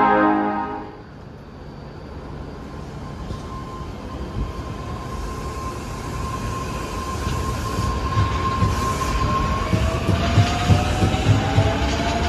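Osaka Metro 400 series electric train pulling out: a short horn blast at the start, then the steady whine of its traction drive, which rises in pitch from about ten seconds in as the train gathers speed. Regular thumps of the wheels over rail joints grow through the last few seconds.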